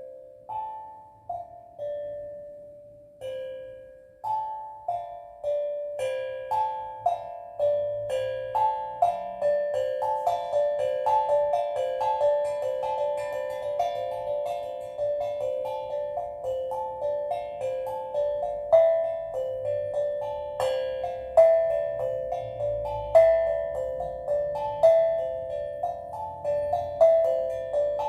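Steel drum playing a slow, calm melody of single struck notes that ring and fade, a few spaced notes at first, then a steady flow of about two notes a second from about four seconds in.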